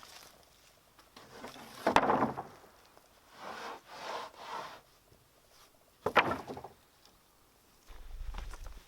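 Wooden boards knocking and scraping. There are two sharp knocks about four seconds apart, with a few shorter scrapes between them, and a low rumble starts near the end.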